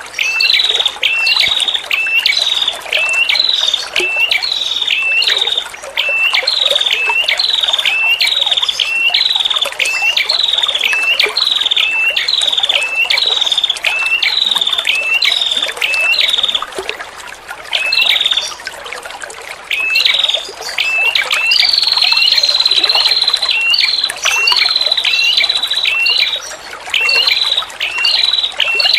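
A female prenjak kepala merah (a prinia) calls a long run of repeated, sharp, hooked high notes, roughly one and a half a second, over steadily trickling water. After a short break the notes give way to a long, steady, high trill, and then the notes return.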